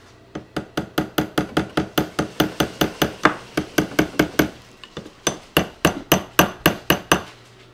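Steel claw hammer tapping rapidly on a wooden sofa-frame post at a dowelled joint, about four to five light knocks a second with a metallic ring. There is a brief pause about two-thirds of the way through.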